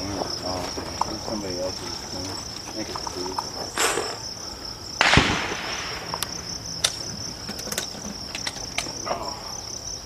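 Steady high-pitched insect buzz throughout, cut by a few sharp cracks. The loudest crack comes about five seconds in and rings on briefly, with a smaller one just before it and a few faint clicks after.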